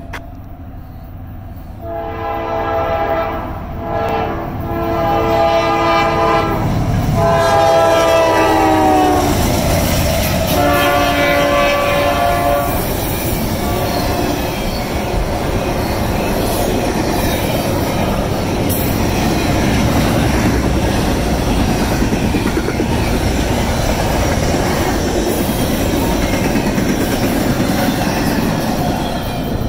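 Norfolk Southern diesel locomotive air horn sounding several blasts at a grade crossing, its pitch dropping as the locomotive passes. It is followed by the steady rumble and clatter of double-stack container well cars rolling by.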